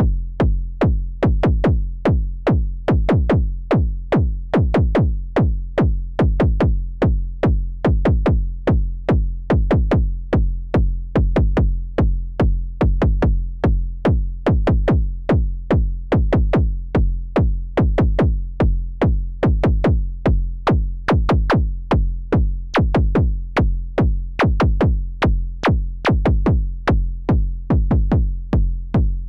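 KORG Volca Kick analog kick synthesizer playing a steady sequenced pattern of punchy kick drum hits over a deep, pitched bass tone.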